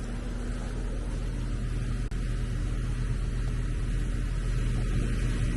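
Steady low mechanical hum and rumble, growing slightly louder, with a very brief dropout about two seconds in.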